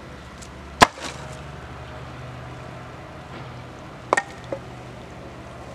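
A few sharp knocks from a homemade sluice header box being taken apart: one about a second in, then a double knock and a lighter one near four seconds. A steady low hum runs underneath.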